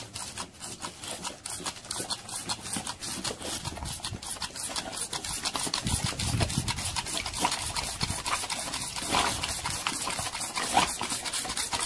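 Toy water pistol squirting in rapid pulses, about four a second, at a boxer dog that snaps at the stream.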